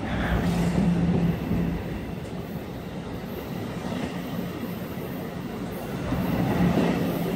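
NJ Transit MultiLevel double-deck commuter coaches rolling slowly along the platform. Steady rail rumble with a low hum underneath.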